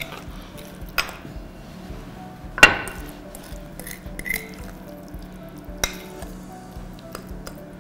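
Spoon and ceramic mixing bowl clinking against a serving dish as thick eggplant dip is scraped out. There are three sharp clinks, the loudest about two and a half seconds in, over soft background music.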